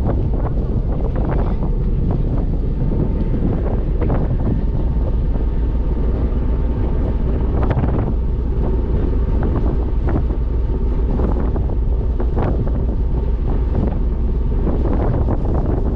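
A ferry's engine running under way, a steady low drone, with wind buffeting the microphone.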